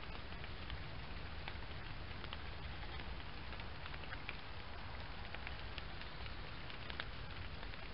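Rain falling steadily, with scattered drops ticking sharply close by, over a low rumble.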